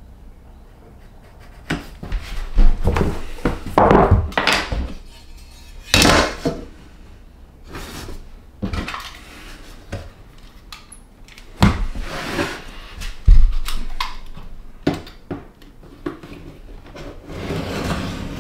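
Handling noises from laminate flooring planks and a metal speed square: a string of irregular knocks, clacks and scrapes as planks are shifted on the plywood subfloor and the square is set down and slid on a plank.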